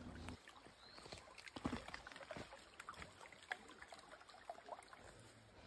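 Faint sound of a shallow stream flowing over stones, with a few small splashes.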